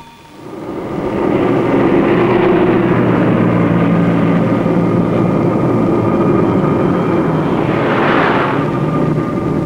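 Electric tram running: a steady rumble of motors and wheels on the rails that fades in over the first second, with a brief swell of higher hiss about eight seconds in.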